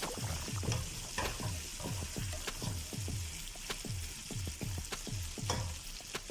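Mutton sizzling as it fries in hot oil in a pot, stirred with a spoon in quick repeated strokes, about three a second.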